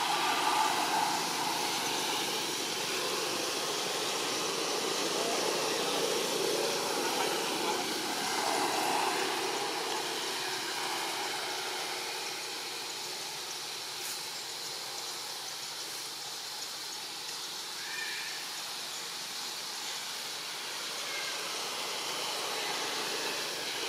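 Steady outdoor ambient noise: an even hiss with no single clear source, a little louder in the first half, with one brief higher-pitched sound about 18 seconds in.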